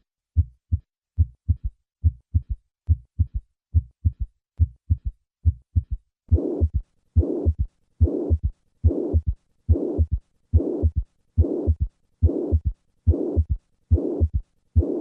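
Heart sounds at about 75 beats a minute: low first and second heart sounds with an added third heart sound. About six seconds in, a pansystolic murmur of mitral regurgitation begins, a blowing noise filling each systole up to the second sound. The third sound may signal a large regurgitant volume or left ventricular dysfunction.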